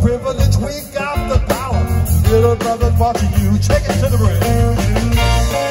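Live rock band playing on stage: drum kit, bass guitar, electric guitar and keyboard, amplified through the PA.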